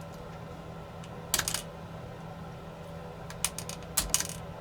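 Small sharp clicks and taps in a few short clusters, a tool prying tiny cable connectors off a drone's internal circuit board.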